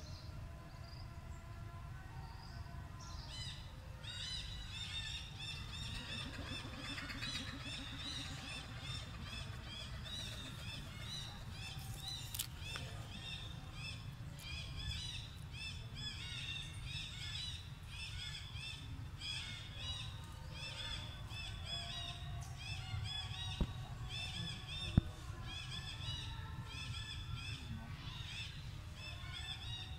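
Birds chirping: short, repeated high calls, several a second, in a dense chorus that starts about three seconds in and carries on throughout, over a steady low rumble. Two sharp clicks, about a second and a half apart, come late on.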